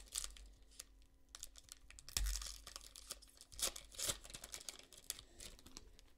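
Contenders basketball card pack's shiny wrapper being torn open and crinkled in the hands, a string of sharp crackles with louder rips about two seconds in and again around four seconds.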